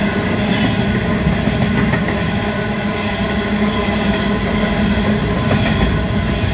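Coal train hopper wagons rolling past close by: a loud, steady rumble of steel wheels on rail with a constant hum running through it.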